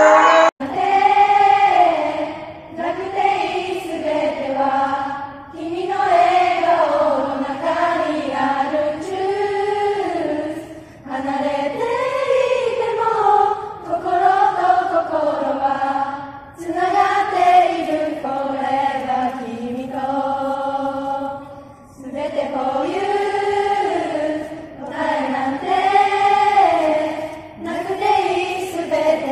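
Unaccompanied group singing: many voices together on one slow melody, in phrases a few seconds long with short breaks between them.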